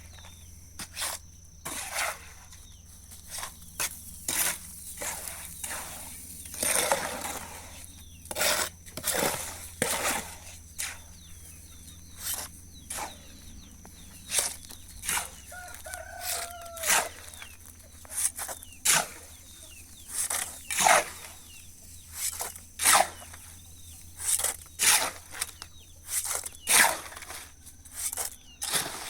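Chickens clucking, with a rooster crowing once about halfway through, among a long series of sharp knocks roughly once a second.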